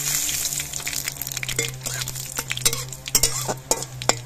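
Nigella seeds and dried red chillies sizzling and crackling in hot mustard oil in an iron kadai as a tempering, with a steady hiss and many sharp pops. In the second half a metal spatula clicks against the pan as the seeds are stirred.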